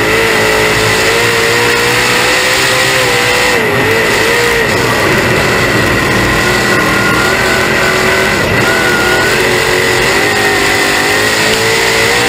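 Dirt late model race car's V8 engine at racing speed, heard loud from the in-car camera, its note dipping and rising again several times through the lap with a steady high whine over it.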